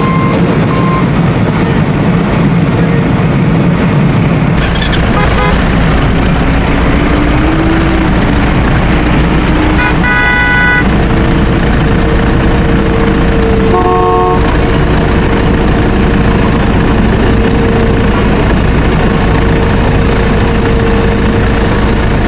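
Steady loud vehicle engine noise, with a horn toot about ten seconds in and a shorter second toot a few seconds later.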